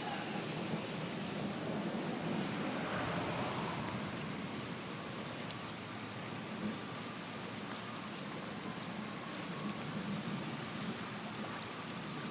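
Floodwater running off a road in a steady, rushing hiss.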